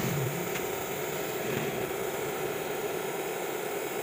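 Gas stove burner running steadily under an empty stainless steel wok as the bare pan is heated for seasoning: an even, rushing noise with no breaks.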